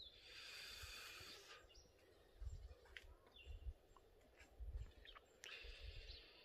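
Near silence, with a few faint short bird chirps, a short soft hiss in the first second and a half, and low rumbles on the microphone.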